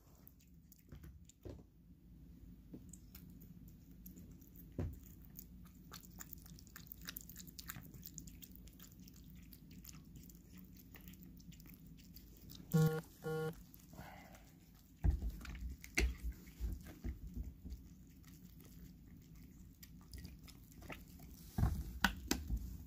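A cat eating wet paté cat food from a bowl: soft, wet licking and chewing clicks. There is a brief double squeak about halfway through, and a few dull low knocks in the second half.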